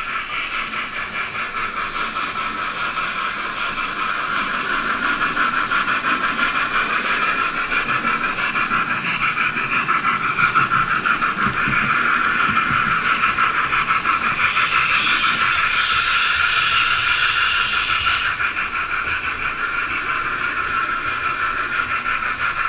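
DCC sound chip in an OO gauge model steam locomotive, playing rapid, steady chuffing through its small onboard speaker. The sound is thin and tinny, with almost no bass.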